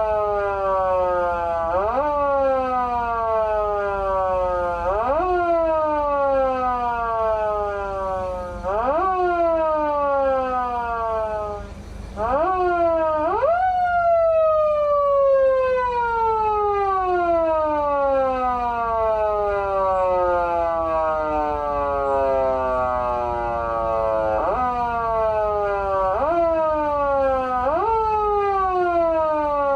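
PATLITE SAP-500BK-PV siren amplifier sounding its foot siren, the electronic imitation of a motor-driven siren. The pitch shoots up quickly with each press of the pedal and winds slowly down when it is let go, again and again. About twelve seconds in it dips briefly, then gives one long wind-down of about ten seconds before the quick rises start again.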